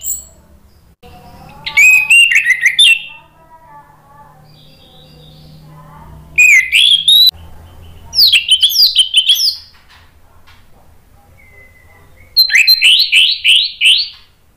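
Orange-headed thrush singing loudly in four bursts of rapid whistled phrases with short pauses between them. The last burst, near the end, is a quick run of rising notes.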